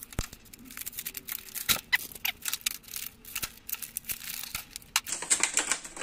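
Utility knife blade scraping and clicking along a steel magnetic tool-holder bar to cut the glued magnets loose, in irregular small clicks and scrapes. About five seconds in it turns to denser rustling and scraping.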